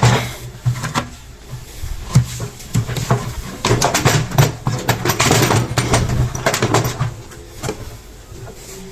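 Front cover panel of a front-load washing machine being handled and fitted onto the cabinet: a run of knocks, clicks and scrapes, busiest in the middle, over a low steady hum.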